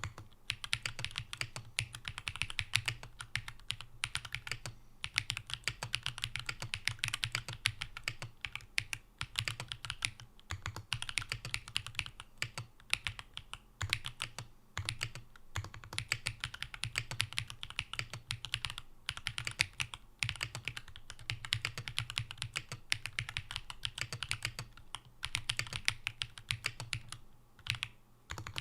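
Steady, fast typing on a Matrix Vita mechanical keyboard with Gateron Baby Kangaroo tactile switches, an aluminium top-mount plate, PCB foam and GMK Camping keycaps: a dense run of keystroke clicks with short pauses every few seconds.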